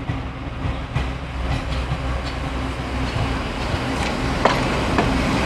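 Diesel railcar train approaching along the track, its steady low engine hum growing louder as it nears. The wheels knock on the rail joints a few times, most clearly near the end.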